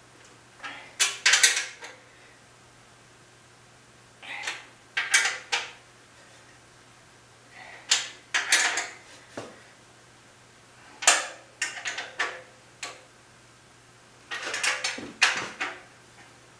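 Nuts and bolts on a sheet-steel drum sander stand being tightened with a wrench: five short bursts of metallic clicking and clinking, about every three seconds, with quiet between.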